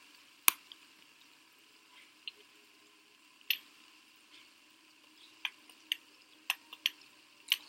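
Scattered sharp clicks and taps of fidget spinners being handled and knocked against each other, about a dozen, irregular and more frequent in the second half.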